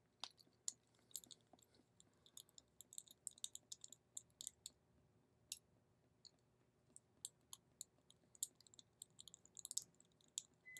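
Faint, irregular small clicks and ticks of a small screwdriver and tiny screws being worked out of an electronic padlock's casing, several a second, in bunches.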